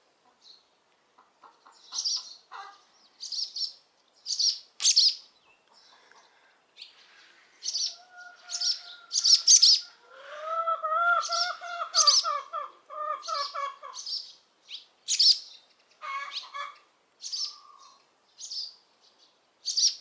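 Swallows giving short, sharp alarm calls, singly or in pairs about once a second, agitated by people filming close to their nest.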